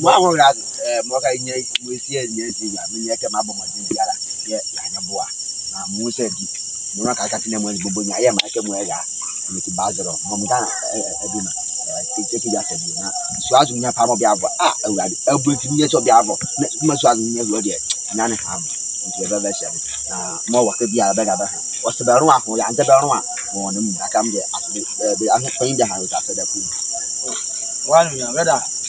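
A steady high-pitched chorus of night insects such as crickets, running unbroken, with people talking over it in bursts.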